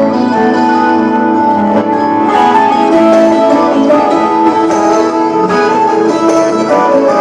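Loud instrumental music led by a plucked string instrument, with held notes and no singing.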